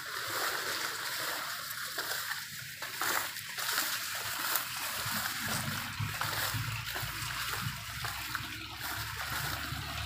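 Leaves of tall grass and crop plants rustling and swishing as someone pushes through them on foot, with a low rumble underneath that grows stronger about halfway through.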